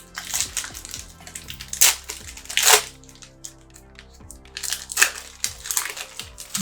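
Plastic trading-card pack wrapper being torn open and crinkled, in several loud rustling bursts, over steady background music.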